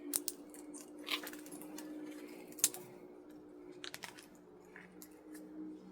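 Scattered small metal clicks and scrapes of hand work on a scrapped electric motor, the loudest click a bit over halfway through, over a faint steady hum.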